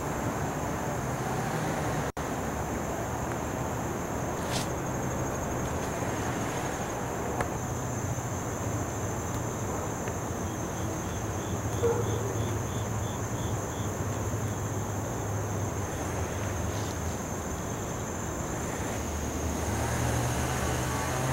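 Steady high-pitched insect chorus, crickets or similar, shrilling over a low steady hum and tape hiss. A short run of quicker pulses joins in around the middle, and the insect sound drops away shortly before the end as the hum grows louder.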